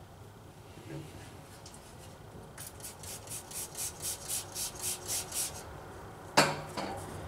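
WD-40 aerosol sprayed in about a dozen short, even spurts, roughly four a second, followed by a single sharp knock near the end, the loudest sound.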